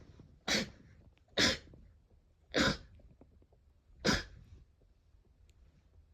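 Four sharp sneezes in a row, each short, coming about a second to a second and a half apart.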